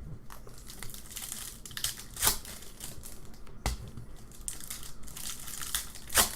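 Trading card pack wrappers crinkling and tearing as packs are opened by hand, with a few sharp snaps or taps of cards and wrappers handled on a table.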